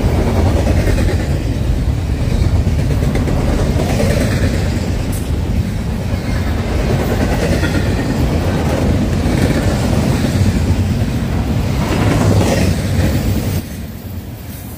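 Double-stack intermodal freight train's well cars rolling past close by: a steady rumble and clatter of steel wheels on the rails, getting quieter near the end.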